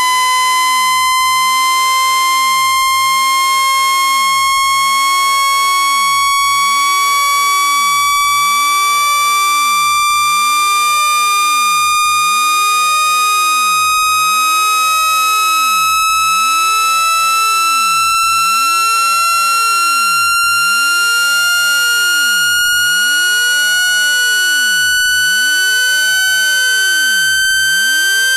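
Synthesized speaker-cleaning tone: a loud, steady electronic tone with overtones, gliding slowly and evenly upward in pitch. It is played to shake dust out of a phone speaker.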